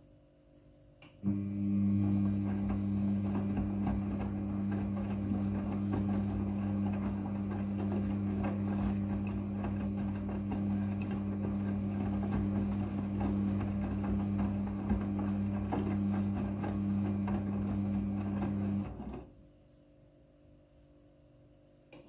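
Midea front-loading washing machine's drum turning in the wash cycle: a steady motor hum with towels tumbling and water sloshing. It starts about a second in and stops near the end, a tumble of about eighteen seconds before the drum pauses.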